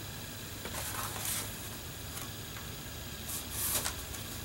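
Soft rustling of paper and cellophane-wrapped craft items being handled by hand, in two short spells about a second in and again near the end, over a low steady hum.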